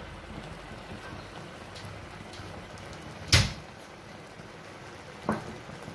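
Kitchen clunks: a single sharp knock about three seconds in and a lighter one near the end, typical of a steel spatula or pan being knocked. Under them is a faint steady hiss from the pan of bubbling kootu.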